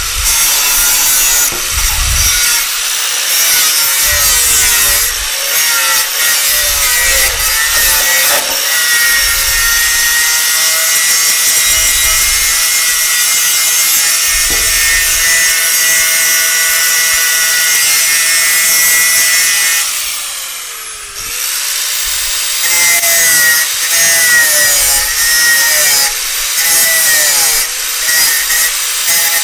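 Power saw cutting through steel clips on a car chassis, running steadily under load. About two-thirds of the way through, the motor's pitch and loudness sag briefly and then pick back up.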